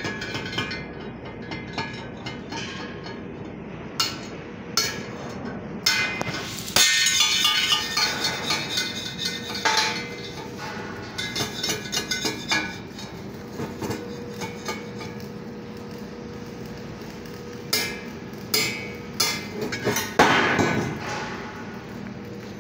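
Steel parts clanking together and being struck, with sharp ringing metal hits in irregular clusters as a fabricated steel box piece is fitted against a steel beam. The hits are densest about seven to ten seconds in, with a heavier hit near the end.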